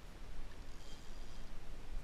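Steady rushing noise of wind and water, with a faint high tone in the middle.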